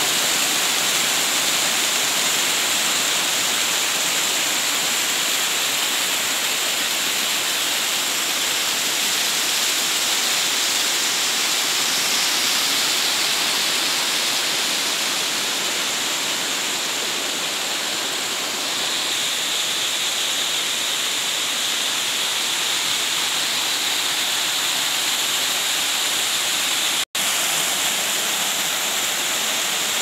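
A small waterfall's water rushing and splashing down over rock slabs, heard close up as a steady loud rush. The sound drops out for an instant near the end.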